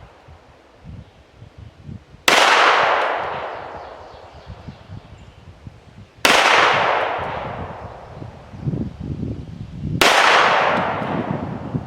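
Three single pistol shots fired slowly, about four seconds apart, each followed by a long echo that fades over a few seconds. The shots are deliberate trigger-isolation fire.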